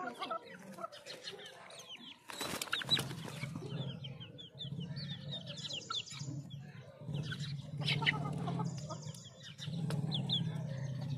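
Young game-fowl chicks peeping with short falling chirps and pecking grain from a steel bowl with sharp clicks, with a brief burst of wing flapping about two seconds in. A low steady hum sits underneath from about three seconds on.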